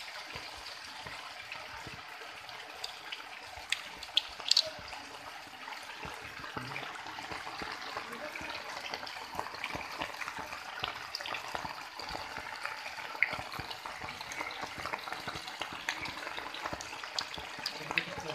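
Rain falling steadily on standing floodwater and hard ground: a dense, even hiss of drops with a few louder clicks about four seconds in.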